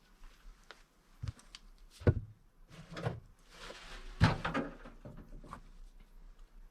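A few separate dull knocks and thumps, the loudest about two seconds and four seconds in, with a stretch of rustling around the later one.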